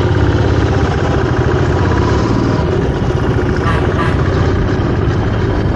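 Motorcycle engine running steadily while riding, with an even low pulsing, and two short clicks a little before four seconds in.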